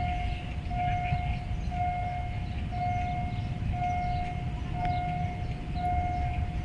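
Railway level crossing warning signal beeping steadily, one clear electronic note about once a second, signalling an approaching train. A low steady rumble runs underneath.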